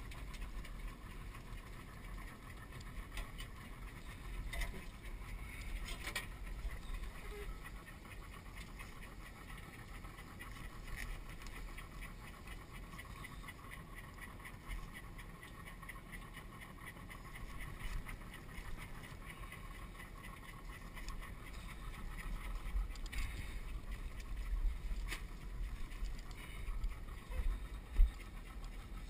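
Outboard motor running steadily as the skiff moves, with wind on the microphone. Now and then come sharp knocks and rattles of crawfish traps being handled against the boat, the loudest a single knock near the end.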